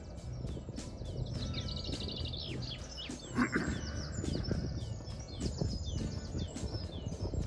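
Many songbirds chirping and trilling over one another, with one louder, lower call about three and a half seconds in, over a low steady rumble.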